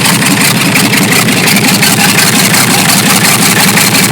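Chevrolet D60 truck's Perkins diesel engine idling with a steady, even firing rhythm, just after a quick cold start from standing unused for some time.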